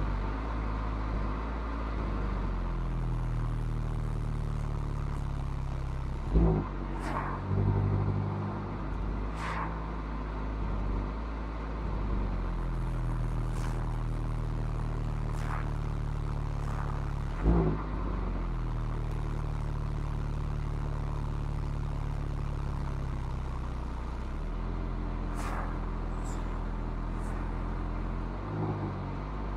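Mazda MX-5's four-cylinder engine running through its stock exhaust on an uphill drive. The engine note steps up and down in pitch several times as the throttle and revs change. Two sharp thumps, about six and seventeen seconds in, are the loudest sounds.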